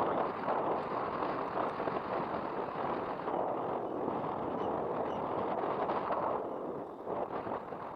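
Wind buffeting the microphone with road and tyre noise while riding a Jetson Bolt electric bike: a steady rushing noise that eases a little near the end.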